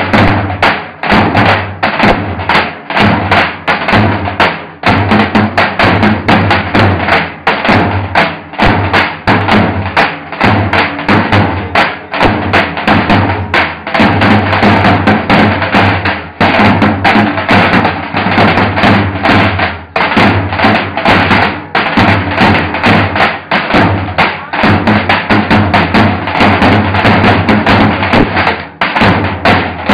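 Three Turkish davul drums beaten together in a dense, driving rhythm of strokes.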